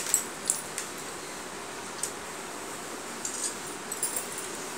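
Bangles on a wrist clinking in short, scattered light clicks as a hand mixes and scoops watered rice in a bowl.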